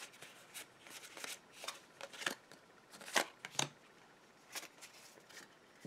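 Pokémon trading cards being flicked through in the hands and set down, a run of light snaps and slides, the sharpest a little after three seconds in.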